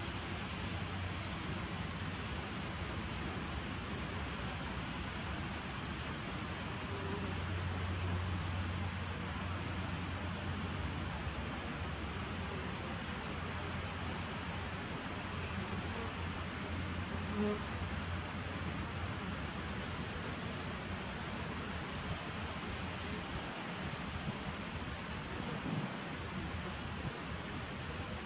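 Honeybees humming at the entrance of a nucleus hive, with a steady high-pitched tone behind the hum.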